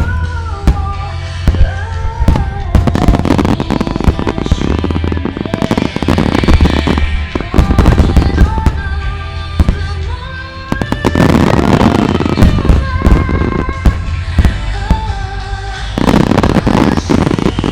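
Aerial firework shells bursting in rapid, continuous succession, a dense run of sharp bangs and crackles, over music playing from loudspeakers with a held melody.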